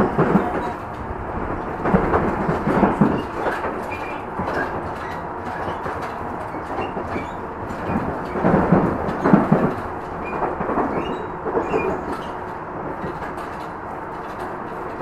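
Tobu 50050-series electric train running at speed, heard from inside the car: a steady rumble of wheels on rail, with several louder bursts of clatter as it crosses rail joints.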